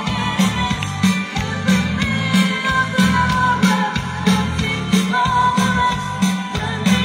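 Live rock band playing through PA speakers: a steady drum beat, bass and guitar, with a singer's voice over them.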